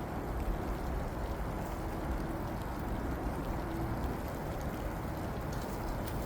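Steady low outdoor rumble, a mix of wind and distant background noise, with no clear single event.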